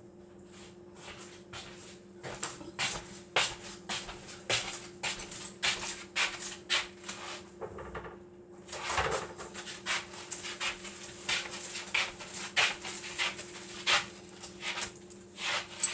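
Eggs being beaten in a bowl: a run of quick, uneven clinks, about three or four a second, that pauses briefly about halfway through and then carries on.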